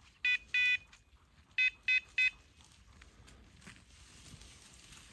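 Electronic beeper collar on a hunting dog sounding high-pitched beeps: two, then three quicker ones about a second later, the signal of a pointing dog standing still on point. Faint rustling comes in toward the end.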